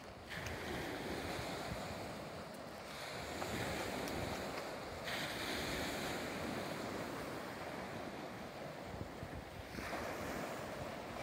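Small waves breaking and washing over a pebble beach, with wind blowing on the microphone. The sound changes abruptly a few times.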